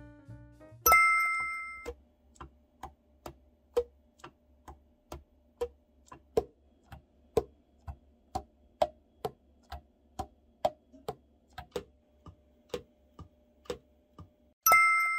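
Yamaha AS-100 alto saxophone keys pressed and released one after another during a leak test, the pads closing on the tone holes with a series of short popping clicks, about two to three a second; the crisp pops are the sign of pads seating and sealing well. A bright two-tone ding sounds about a second in and again near the end.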